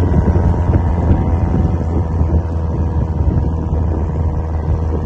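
Vehicle engine drone and tyre noise, heard from inside the vehicle as it drives along a snow-covered road; a steady low hum.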